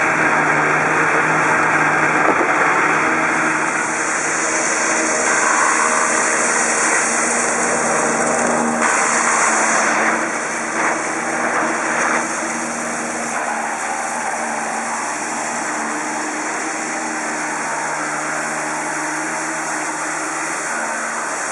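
Tractor engine running under load, driving a JF Z200 willow harvester that cuts and chips energy-willow stems and blows the chips into a trailer. A steady engine drone under a rushing hiss, which is strongest for a few seconds near the middle and eases off in the second half.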